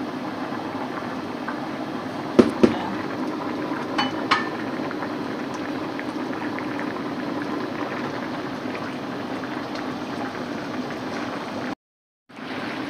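Chicken curry simmering and bubbling steadily in a pot on the stove, with two sharp knocks about two and a half seconds in and a few light clinks around four seconds. The sound drops out for half a second near the end.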